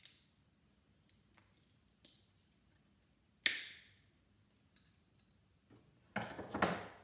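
Side cutters snipping plastic and gold-plated pins off a circuit-board connector: faint small clicks, one sharp snip about halfway through, then a quick run of snapping and crackling near the end.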